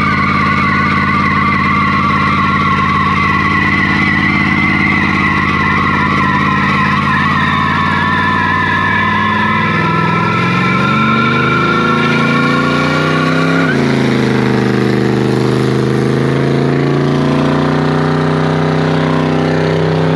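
A car doing a burnout: the engine is held at high revs while the spinning rear tyres squeal. About fourteen seconds in the squeal fades and the engine note drops, and the engine keeps running at lower revs.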